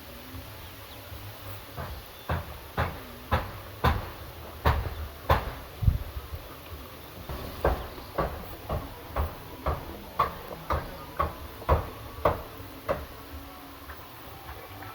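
Repeated sharp knocks, about two a second, in two runs with a short pause between them, like a tool striking again and again.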